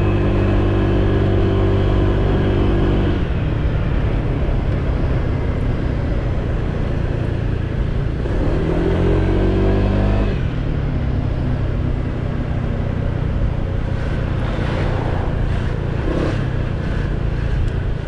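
Honda PCX 125 scooter's single-cylinder engine running while riding at low speed. The note drops about three seconds in as the throttle eases, rises again between eight and ten seconds, then settles lower, with a few short knocks near the end.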